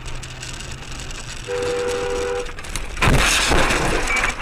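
Car horn blaring for about a second, two steady tones together, over the car's low road rumble. About three seconds in comes a loud rough crash as the car skids off the snowy road into a snowbank.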